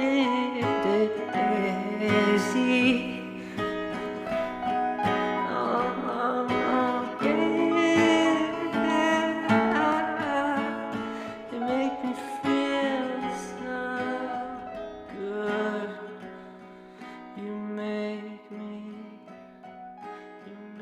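Background song with acoustic guitar and singing.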